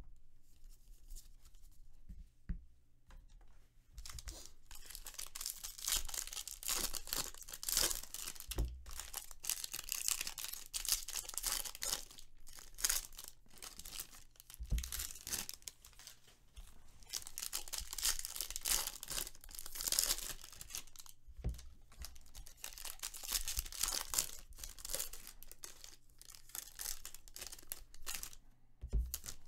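Foil wrappers of Bowman Draft baseball card packs being torn open and crinkled by hand, in repeated rustling bursts that begin a few seconds in, with brief pauses between packs. A few soft thumps, cards or packs set down on the table, come in between.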